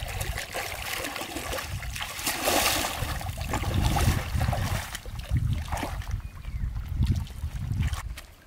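Legs wading through shallow lake water: splashing and sloshing with each step, loudest about two and a half seconds in, dying away near the end as the feet leave the water.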